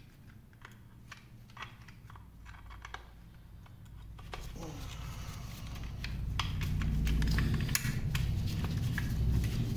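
Light metallic clicks and scrapes of a folding hex key working a screw in a cast-iron lathe apron. About halfway through, a low, rough handling noise builds and stays louder, with more clicks over it.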